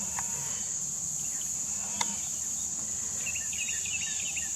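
Steady high-pitched insect chorus of crickets, with a short bird twitter about three seconds in and a faint click about two seconds in.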